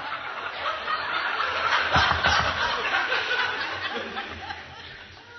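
Audience laughter, dense at first and dying away toward the end, with a low thud about two seconds in.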